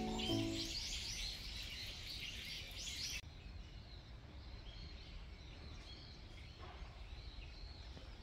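Small birds chirping rapidly in the trees, a quick run of high repeated notes that cuts off suddenly about three seconds in. After that only faint outdoor ambience with low rumble and a few scattered distant bird notes.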